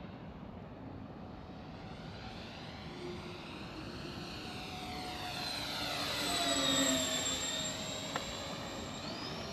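Electric motors and propellers of a FlightLine B-24 Liberator RC model warbird whining as it flies past. The pitch sweeps down and back up, loudest about seven seconds in as it passes.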